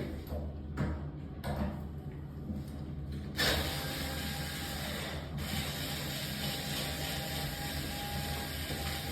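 Metal parts of a door lockset clicking and rattling as it is taken apart by hand, then a steady hiss starts suddenly about three and a half seconds in and holds.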